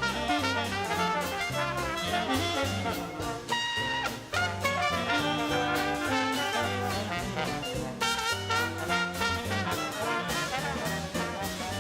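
Upbeat swing-style instrumental music with brass over a bass line that steps from note to note.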